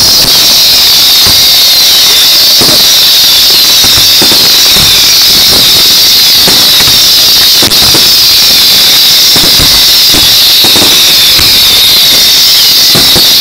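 Fireworks barrage going off continuously: a steady high-pitched whistling hiss from many shells at once, with repeated bangs and crackles throughout, very loud.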